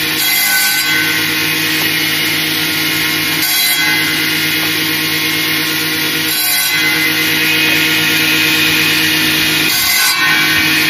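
Electric table circular saw running with a steady motor hum, its blade cutting through branches four times, a few seconds apart.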